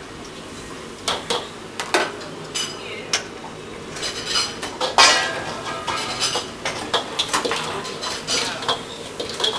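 Metal ladle clanking and scraping against a wok during stir-frying, over a steady hiss. The clanks begin about a second in and come thick and fast from about four seconds on, the loudest near the middle.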